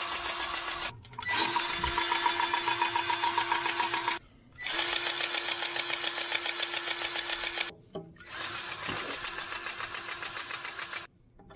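Cordless battery-powered grease gun pumping grease into the mixer wagon's grease fittings: its motor-driven pump runs with a rapid pulsing and a steady hum in runs of about three seconds, stopping briefly between runs.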